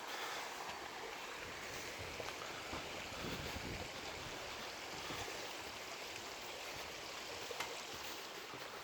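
Steady rushing of a mountain stream flowing over rocks, with a brief low rumble on the microphone about three seconds in.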